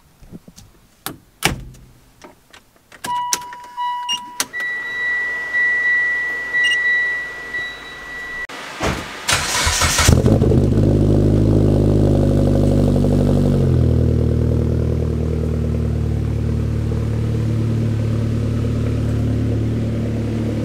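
Door clicks and steady electronic warning chimes. Then the turbocharged Mitsubishi Lancer's four-cylinder engine cranks briefly and starts about ten seconds in, after sitting unused for a while. It runs at a fast idle, then drops to a lower, steady idle a few seconds later.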